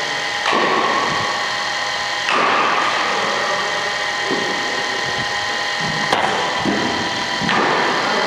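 Steady mechanical hum with a whine of several steady tones, as of a running machine, swelling about half a second, two and a half seconds and seven and a half seconds in, with a sharp click about six seconds in.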